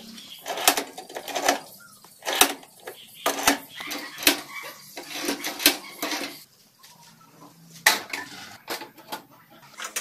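Metal clinks and clanks from hand tools and steel linkage parts being worked on a buggy's frame: a string of irregular sharp knocks, busier in the first half and sparser after about six seconds.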